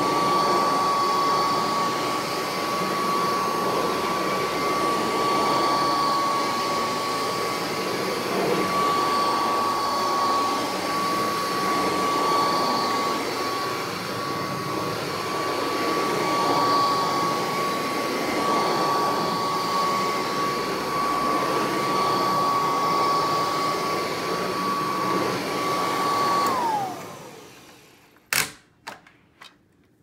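Kirby Classic III upright vacuum running on carpet: a steady high whine over a rushing of air, its level swaying as it is pushed back and forth. About 26 seconds in the motor shuts off and the whine falls away quickly, followed by a few sharp clicks.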